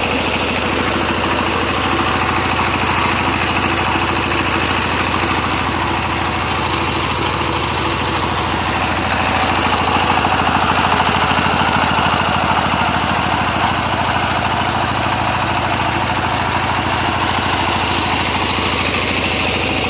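Generator set's engine running steadily: a constant hum, slightly louder around the middle.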